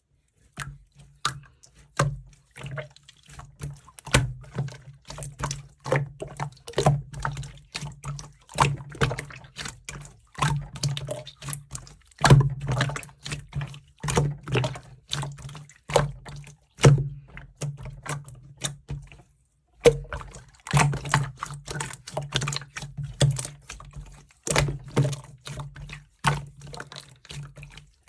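Slime being squeezed and worked by hand, giving a run of wet clicks and small pops in uneven bursts, with a short pause partway through.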